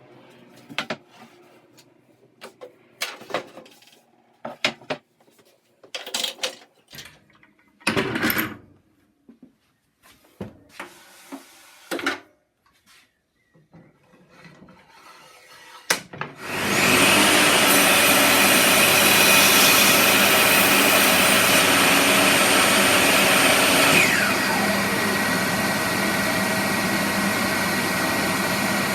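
Wood and tools being handled, with scattered knocks and scrapes. Partway through, a woodworking power tool starts up and runs steadily and loudly, getting somewhat quieter about two-thirds of the way through.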